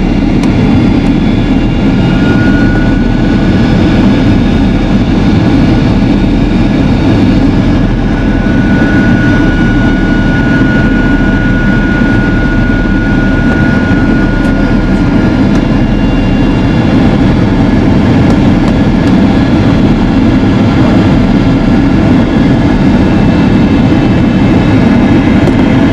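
Steady jet-engine and airflow noise inside the cabin of a Boeing 767-300ER in flight, a dense even rumble. A faint high whine comes in briefly and then again for several seconds near the middle.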